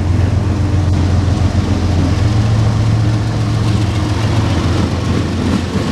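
CSX diesel freight locomotive passing close by, its engine running with a steady low drone, then autorack cars rolling past with continuous wheel-on-rail noise.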